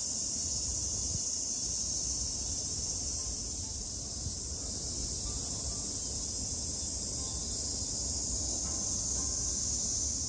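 Steady, shrill high-pitched drone of cicadas singing in summer, with a low rumble underneath.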